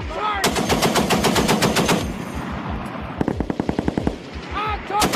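M2 .50 caliber heavy machine gun firing on automatic in three bursts of rapid, evenly spaced shots, roughly ten a second. The first burst lasts about a second and a half, a shorter one comes around the middle, and another starts near the end.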